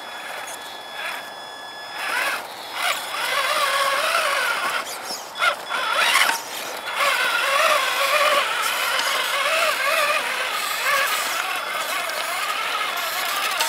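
Traxxas Summit RC truck's electric motor and geared drivetrain whining as it crawls over loose dirt, the pitch rising and falling with the throttle. The whine gets louder about two seconds in.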